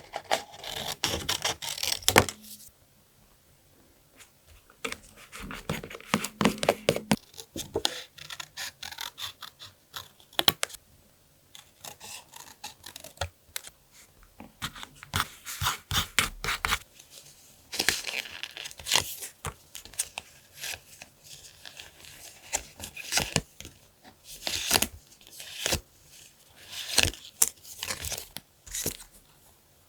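Paper being torn and handled close to the microphone, in irregular bursts of tearing and rustling with short quiet pauses between them.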